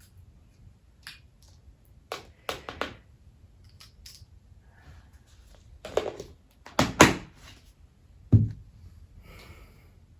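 Handling noises at a table as food is taken out to taste: a scattered series of sharp knocks and clicks. The loudest come about seven seconds in, with one duller knock just after, and a brief rustle near the end.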